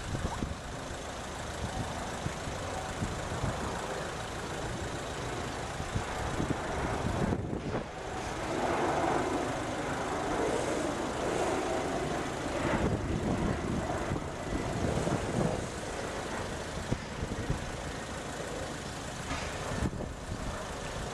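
Steady outdoor background noise with a low rumble and no clear tones, swelling louder in the middle range from about eight to sixteen seconds in.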